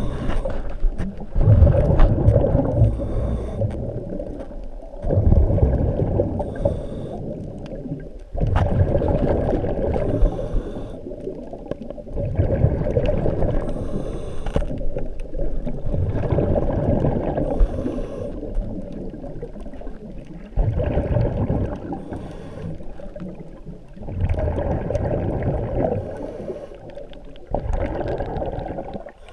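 Diver's exhaled bubbles from a hose-fed regulator: a rumbling burst of bubbles about every three and a half seconds, each fading out, with a faint hiss of inhaling between them, heard muffled through an underwater camera housing.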